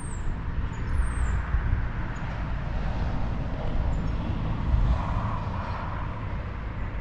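Road traffic on a town street: a steady rumble, with a vehicle passing about five seconds in.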